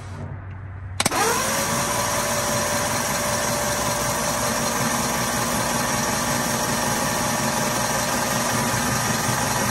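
Starter cranking a 1939 Ford flathead V8 that has its cylinder heads off. The engine turns over freely and evenly ("whirls over"), a sign it is no longer stuck. It engages with a click about a second in, and its whine rises briefly, then holds steady.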